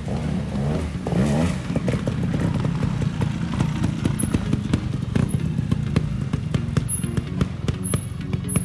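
Trials motorcycle engine running and being blipped, its pitch rising briefly about a second in, with many sharp clicks and knocks along the way.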